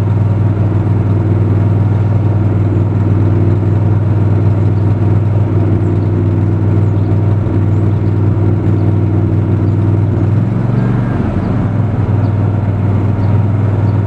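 Miller Trailblazer 325 EFI welder/generator's gasoline engine running loudly with a steady note that wavers and dips briefly about ten seconds in. This is a mild bout of its rough running and throttle surging, which the owner suspects comes from a faulty oxygen sensor.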